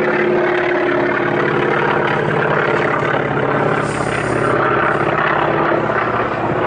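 North American T-28 trainer's nine-cylinder Wright R-1820 radial engine at full power as the plane climbs out after takeoff and passes overhead: a loud, steady propeller drone whose even tone turns into a rougher rumble from about halfway through.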